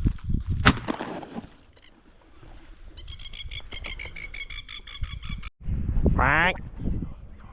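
A duck call blown in a loud quack whose pitch falls steeply, about six seconds in. Before it comes a fast run of short, high chirps, and early on some low thumps and one sharp high note.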